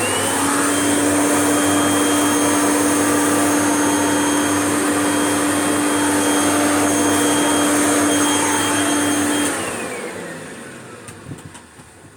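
G5 vacuum cleaner switched on, its motor whine climbing quickly to a steady high pitch over a steady hum and rush of air. About nine and a half seconds in it is switched off, and the whine falls away as the motor winds down.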